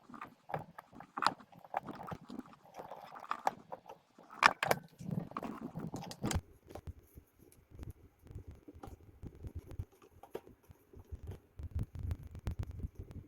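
Irregular small clicks, taps and rustling from hands fitting 3D-printed plastic grip panels and their screws onto a steel 1911 airsoft pistol frame, busiest in the first half, with one sharper click a little over four seconds in.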